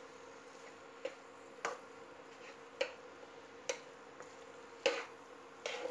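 Metal spatula knocking and scraping against a kadhai while stirring grated carrot halwa that is being roasted in ghee, the water having cooked off. There are about six sharp clinks, irregularly spaced about a second apart, over a faint steady hum.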